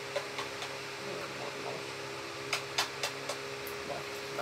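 A steady low electrical hum, like a running fan, with a few short sharp clicks or taps; the loudest come in a quick cluster of about four, about two and a half to three and a half seconds in.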